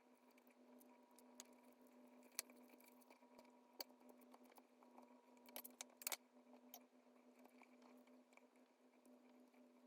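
Near silence: faint room tone with a steady low hum and a few scattered light clicks or taps.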